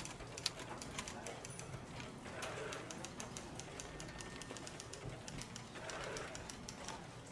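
Doves cooing at intervals in the background, over scattered sharp clicks from a manual typewriter and the rustle of paper slips being handled.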